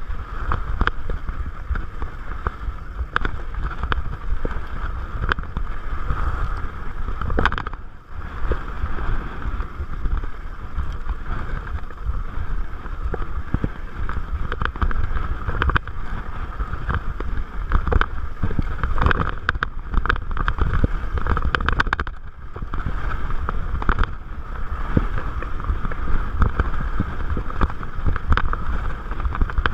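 Salsa Bucksaw fatbike descending a dirt singletrack: constant wind buffeting on the microphone over tyre rumble, with frequent short rattles and knocks as the bike rides over bumps. The noise dips briefly about eight seconds in and again a little after twenty-two seconds.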